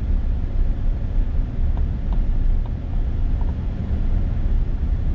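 Steady low rumble of a car driving slowly on an unpaved road, heard from inside the cabin: engine and tyre noise.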